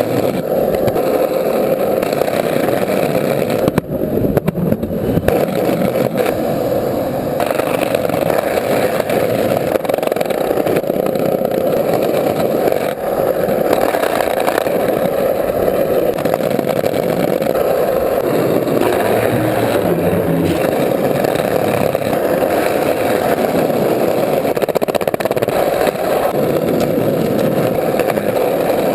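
A loud, steady, engine-like drone that runs on without a break, with a constant hum in the middle of the range and only small changes in level.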